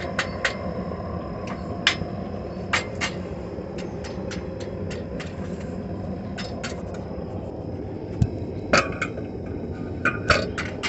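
Hot iron bar being bent in a bending jig: scattered, irregular metal clicks and knocks of the bar and tongs against the jig, the loudest a ringing knock near the end, over a steady low rumble.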